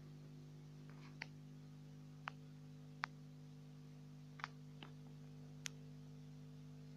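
A faint, steady electrical hum, with six sharp, isolated ticks at irregular intervals of about a second. No thunder is heard.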